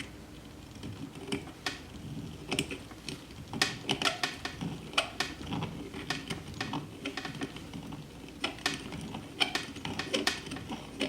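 Deburring tool scraping burrs from the cut end of a half-inch copper pipe: a run of irregular metal scrapes and clicks, a few a second.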